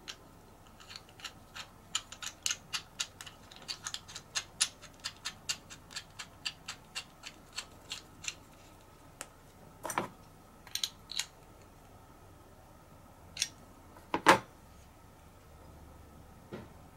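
Small metal clicks, about four a second, as a chrome steel revolving handle grip is turned by hand to screw its threaded stud into a drill press's feed handle arm. A few louder knocks follow, the loudest about fourteen seconds in.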